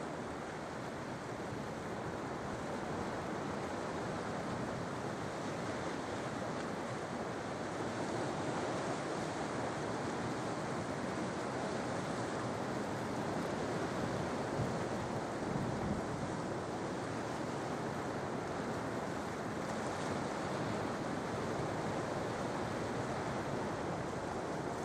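Sea waves washing in on the shore: a continuous rush of surf that swells a little over the first several seconds and then holds steady.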